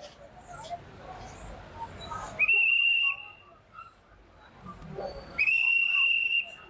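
Two long, shrill blasts on a whistle, each under a second with a slight upward slide at the start, about three seconds apart: about two and a half seconds in and again near the end.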